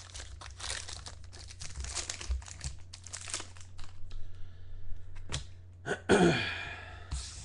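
Trading card pack wrapper crinkling and tearing as a pack is opened, busy for the first few seconds and then giving way to a few light clicks. About six seconds in comes a short, falling vocal sound, the loudest moment.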